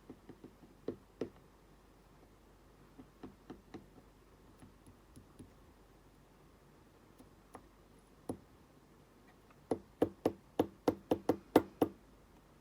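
Sharp clicks and knocks of a Lockwood brass padlock being worked apart by hand, then near the end a quick run of about a dozen knocks, some five a second, as the stubborn lock is tapped to free its parts.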